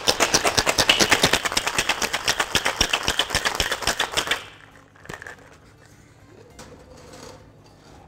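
Ice rattling hard inside a stainless steel tin-on-tin cocktail shaker, shaken fast in a quick steady rhythm, stopping about four seconds in. A few faint metal knocks and clinks follow as the shaker is set down and handled.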